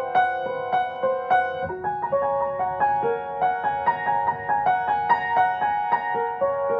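Solo piano improvisation: a steady stream of struck notes in the middle register, several a second, each ringing on under the next.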